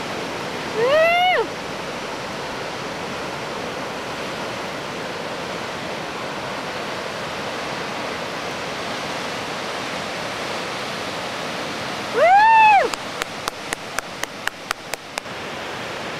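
Steady rushing of breaking ocean surf. Two short cries, each rising and then falling in pitch, cut through it, about a second in and again near the end. A quick run of about ten sharp clicks follows the second cry.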